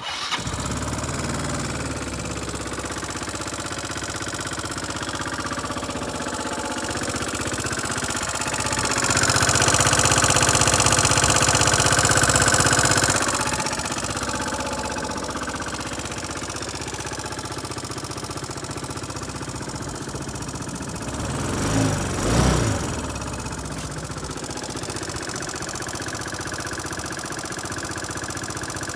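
Yamaha Cygnus X scooter's 125 cc four-stroke single starting and idling, revved for a few seconds about nine seconds in and blipped twice near twenty-two seconds, with a clicking noise whose cause the owner cannot find.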